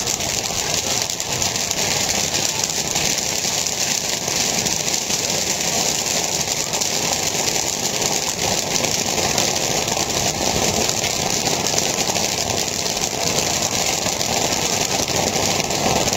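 Popcorn kernels popping in a large open kettle while a wooden paddle stirs them: a dense, rapid crackle of pops over a steady engine-like drone.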